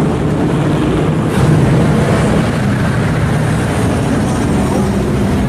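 Pontiac GTO's V8 exhaust as the car drives past, loudest about a second and a half in. A second classic car's engine follows, running steadily at low speed.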